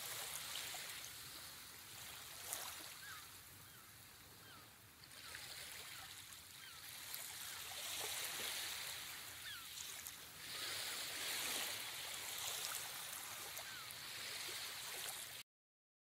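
Faint rushing water ambience that swells and eases every few seconds, with short high chirps scattered through; it cuts off just before the end.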